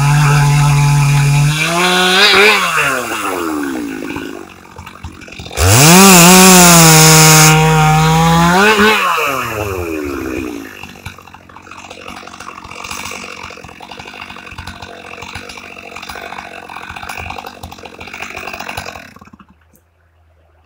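Stihl MS 462 two-stroke chainsaw running, revving up about two seconds in and dropping back. It then goes to full throttle for about two seconds around the sixth second, with a loud hiss of chain through wood, before winding down. It runs more quietly for several seconds and then stops about 19 seconds in.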